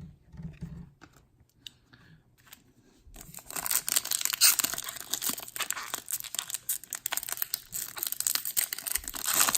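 A Topps Chrome trading-card pack's foil wrapper being torn open and crinkled, starting about three seconds in after a few faint handling ticks.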